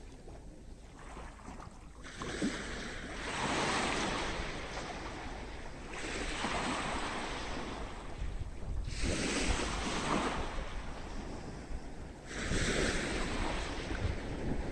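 Sea waves breaking and washing up on a beach, one surge after another about every three seconds, over a low wind rumble on the microphone.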